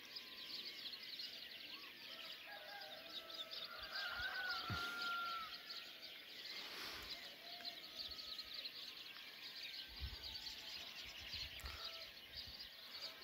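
Dawn chorus of many small songbirds, a dense mix of quick chirps and trills, with a rooster crowing faintly about four seconds in.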